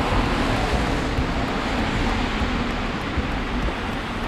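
Steady city street noise: a continuous rush of traffic with no single event standing out.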